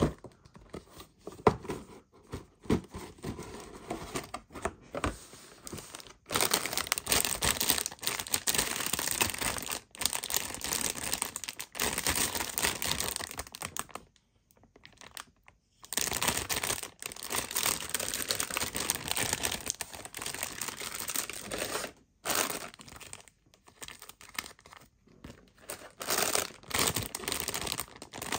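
Light handling clicks of a cardboard box and paper for the first few seconds, then loud crinkling of the thin clear plastic bags that hold a plastic model kit's runners as they are lifted out and handled, in long stretches with brief pauses.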